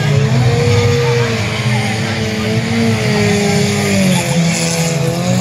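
Several banger cars' engines running and revving together, the pitch of each rising and falling slowly.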